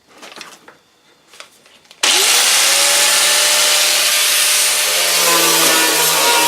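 A few light handling knocks, then about two seconds in a power tool switches on. Its motor whines up quickly and runs steadily over a loud hiss.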